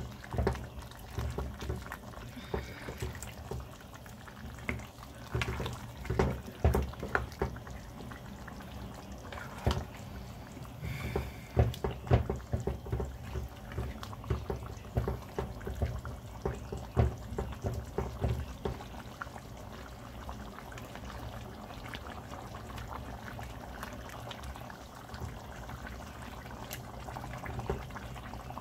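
A spoon stirring and mashing a thick tomato chicken stew with chunks of potato in a metal pot: wet squelching of the stew and frequent knocks and scrapes of the spoon against the pot. The knocks come thickest over the first two-thirds and thin out near the end, leaving a steadier, evener sound.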